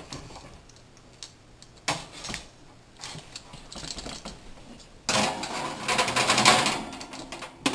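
An oven door is opened with a knock about two seconds in, then a metal cookie sheet slides onto the oven's wire rack, scraping and rattling for about two and a half seconds near the end.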